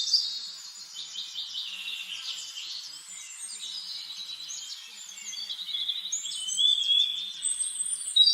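Songbirds singing: dense, overlapping chirps and rapid trills that carry on throughout, high-pitched.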